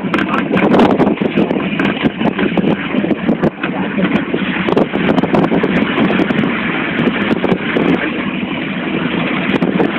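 Moving vehicle driving along a road: steady engine and road noise, with wind rushing over the microphone.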